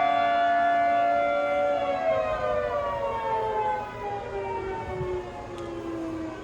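Outdoor warning siren on test, sounding a chord of steady tones. About two seconds in, it starts winding down, its pitch sliding steadily lower as it grows quieter.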